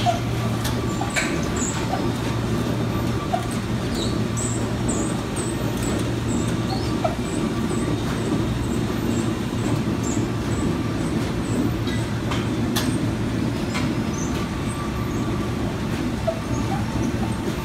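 Packing-line machinery with a rotary bin filler running steadily as it fills a bin with oranges: a constant low hum and rumble, with scattered light clicks and knocks and faint high squeaks.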